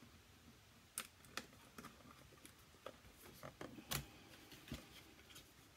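Faint, scattered clicks and taps of a product box and its wrapping being handled and opened, with a sharper click about a second in and another about four seconds in.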